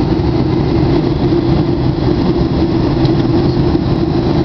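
Steady aircraft cabin noise in flight: engines and rushing air heard from inside the plane, a constant hum over a low rumble.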